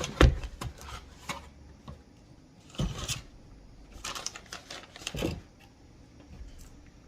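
Handling of protein powder packaging: scattered knocks and clicks in small clusters, loudest near the start, with quieter stretches between.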